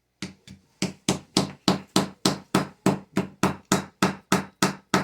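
Wooden mallet from a gem-dig kit hammering rapidly on the chalky dig brick, a steady run of sharp knocks about three or four a second.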